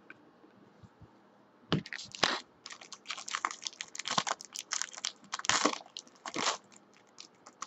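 A shiny plastic trading-card pack wrapper being torn open and crinkled by hand. It makes a run of crackling rustles that starts about two seconds in and stops about a second before the end.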